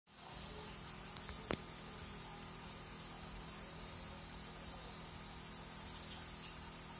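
A cricket chirps steadily in fast, even pulses over the low hum of the aquarium's submersible pump, with one sharp click about a second and a half in.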